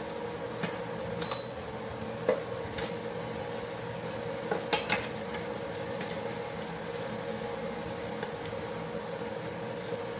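Chicken pieces and onion sautéing in a stainless steel pot with a steady sizzle and a steady hum, while a wooden spoon stirs and scrapes through them, knocking against the pot a few times, loudest in a quick cluster of knocks around the middle.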